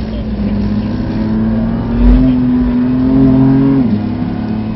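BMW F80 M3's twin-turbo straight-six accelerating hard under load, heard from inside the cabin, its pitch climbing steadily and then dropping suddenly near the end as it shifts up a gear. A low thump comes about two seconds in.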